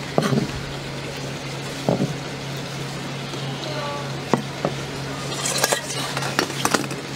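A kitchen knife knocking and scraping on a plastic cutting board as chopped octopus is gathered up. There are a few sharp knocks, then a spell of clattering near the end, over a steady low hum.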